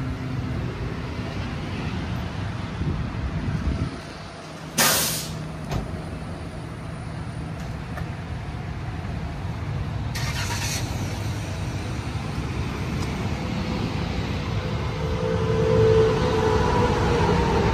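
Steady rumble of vehicle engines at a gas station, with two short, loud hisses about five and ten seconds in.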